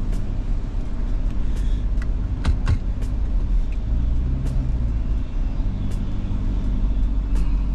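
Lamborghini Urus twin-turbo V8, fitted with an Akrapovič exhaust, running at low revs and heard from inside the cabin as the car creeps into a parking bay. A steady low rumble, with a few light clicks.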